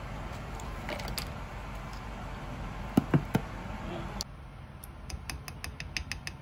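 A plastic measuring spoon handling thick cream at a bowl: a few dull knocks about three seconds in, then from about five seconds a run of light, sharp clicks, about three or four a second.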